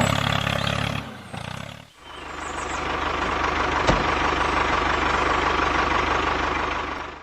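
Tractor engine running, fading out about a second in and building back up to a steady run about two seconds in, with one sharp click near the middle.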